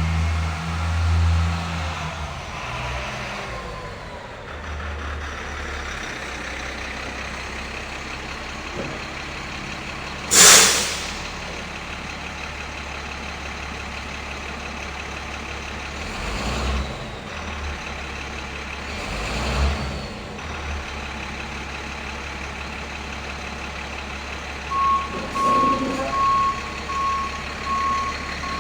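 A truck's engine idling with a steady low rumble, louder at first. A sharp air-brake hiss comes about ten seconds in, with softer hisses later. Near the end a reversing alarm starts beeping in an even rhythm.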